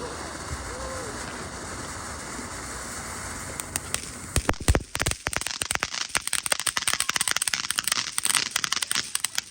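Fireworks: a steady hiss, then about four seconds in a couple of loud bangs followed by a dense run of rapid crackling pops, as from a string of firecrackers going off.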